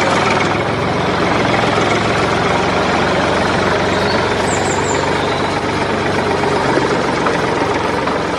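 Tractor engine running steadily at idle, a low even drone.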